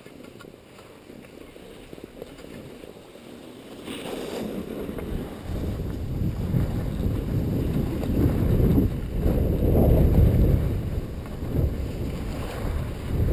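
Wind buffeting a GoPro's microphone while its wearer slides downhill on snow, a low wavering rumble that builds from about four seconds in as speed picks up.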